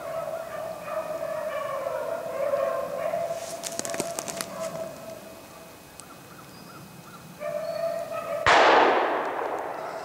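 A pack of rabbit hounds baying on a running rabbit; the baying breaks off for about two seconds past the middle, then resumes. One loud shotgun shot cracks out about eight and a half seconds in, with a long echo.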